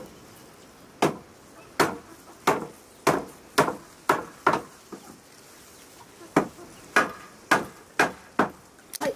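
Hammer blows on the wooden slats of a raised wooden stand, sharp strikes about two a second. Two runs of about seven blows, with a pause of about two seconds in the middle.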